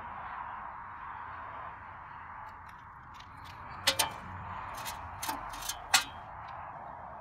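A handful of sharp clicks and taps, the loudest about four and six seconds in, over a steady background hiss.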